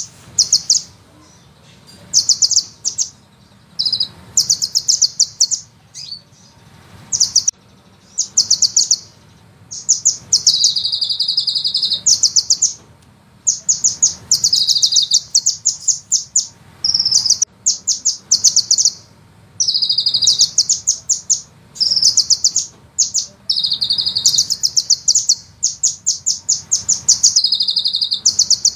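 Sunbird song: bursts of very rapid, high-pitched trilled notes, some short and some rolling on for a second or two, repeated one after another with brief gaps.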